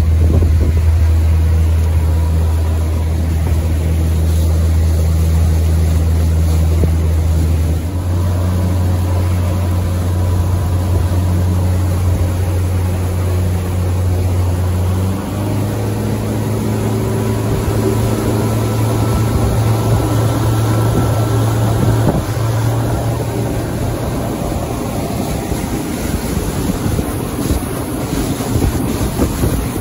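Outboard motor of a small fishing boat running at speed, a steady low drone with water rushing past the hull and wind on the microphone. The engine note shifts pitch a few times, and towards the end the drone fades and wind and water noise take over.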